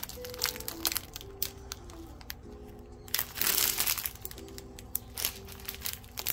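Quiet background music with a slow melody, over the crinkling and rustling of clear plastic zip bags of diamond painting drills being handled. The loudest rustle comes about three seconds in.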